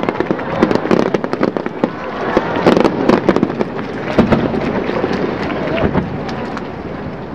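Aerial firework shells going off in a rapid barrage of overlapping bangs and crackles, thinning out over the last couple of seconds.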